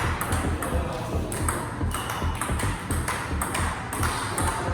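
Table tennis rally: the celluloid-type ping-pong ball clicking off bats and table in a steady run of sharp ticks, about three a second.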